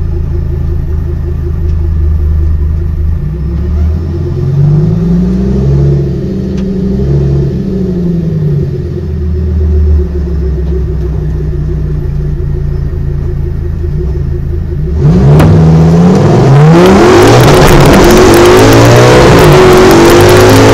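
Audi RS6 twin-turbo V10 in a VW Golf, heard from inside the cabin. It runs at low revs with a few rises and falls in pitch, then about fifteen seconds in it goes to full throttle: much louder, its pitch climbing and dropping back as it pulls through the gears.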